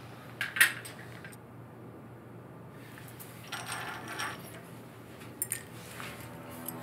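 Light glass clinks of a Turkish tea glass and spoon knocking on its saucer, a couple of sharp clinks about half a second in and a few more near the end, with a soft rustle of movement in between.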